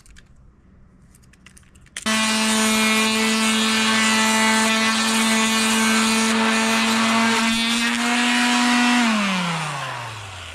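Electric power sander switched on about two seconds in, running at a steady high hum while sanding wood. Near the end it is switched off and spins down, its pitch falling away.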